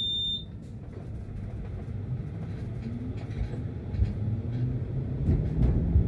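Tram pulling away: a short high beep right at the start, then the rumble of wheels on rails grows louder as the traction motor's whine rises in pitch.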